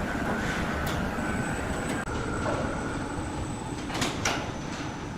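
Sawmill machinery running with a steady rumble and a thin high whine, with two sharp knocks about four seconds in.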